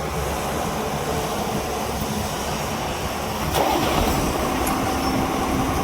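Excavator's diesel engine running steadily. A bit more than halfway through there is a sharp click, and the engine grows louder.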